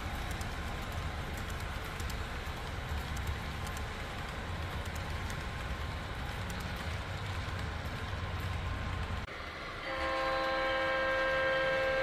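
Sound-equipped HO-scale model diesel locomotives running: a steady low engine rumble over the noise of wheels on track, played through Soundtraxx Tsunami2 decoders and Scale Sound Systems speakers. About nine seconds in the rumble drops off abruptly, and a chord-like multi-note air horn blows for nearly three seconds near the end.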